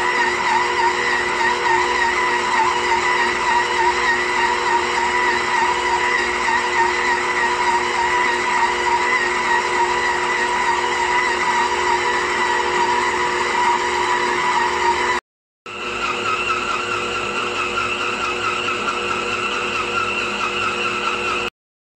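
Electric stand mixer's motor running steadily as its dough hook kneads sweet bread dough, giving a constant whine. About fifteen seconds in it cuts off for a moment, then runs again at a higher pitch until it stops near the end.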